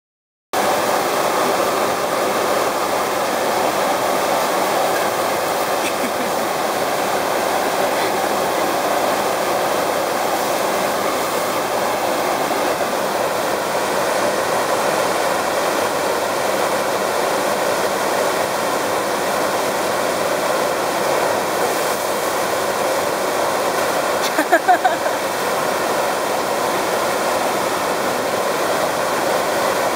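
Steady rush of water from a sheet-wave surf machine, its pumped water sheet pouring up and over the padded slope. About 25 seconds in there is a brief, loud pitched sound.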